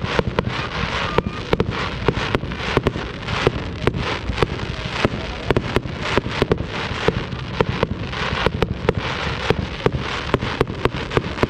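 Fireworks display going off: rapid, irregular bangs, several a second, over continuous crackling.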